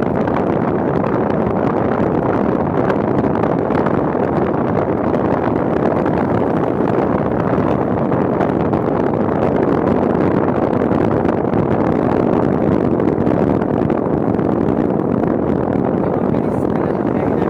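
Steady rush of wind and engine noise from a Suzuki Smash 115 underbone motorcycle riding along at a constant pace, even and unchanging throughout.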